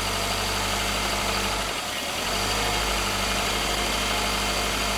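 Subaru Forester flat-four engine running steadily at about 1500 rpm in drive, with a brief dip in its low hum about two seconds in. On premium fuel, the warm-engine rattle it is being tested for does not come.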